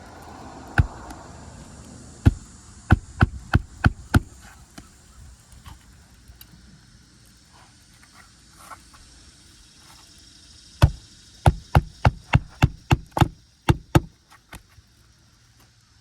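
Hammer strikes driving roofing nails into asphalt shingles: a single blow, then a quick run of about six blows, a pause, and a second run of about ten blows at roughly three a second.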